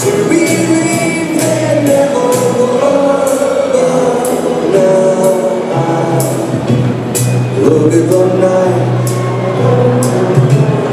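Music with singing over percussion, a song with a sung melody and repeated sharp drum or clap hits.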